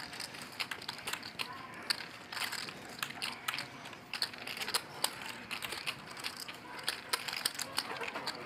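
Poker chips clicking against each other as they are handled and riffled at the table: a run of quick, irregular clicks.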